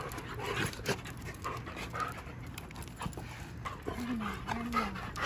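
Large dog panting quickly in short, repeated breaths.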